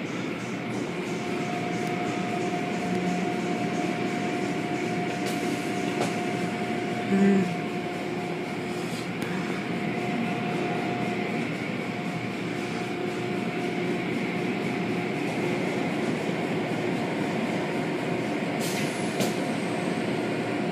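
Automatic tunnel car wash running: a steady churn of spinning cloth brushes and water spray over a constant machinery hum, with a short louder sound about seven seconds in.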